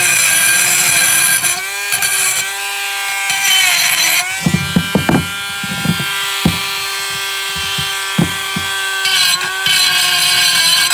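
Dremel rotary tool running at high speed as it grinds rust off a steel brake caliper bracket, its whine dipping in pitch when pressed into the metal. Around the middle it is quieter, with a few sharp knocks.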